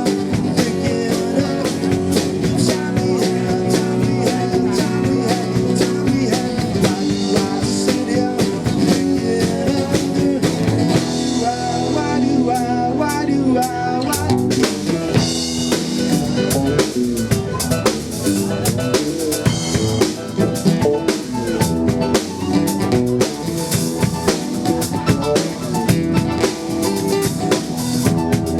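A band playing an instrumental passage without vocals: drum kit beating steadily under guitar.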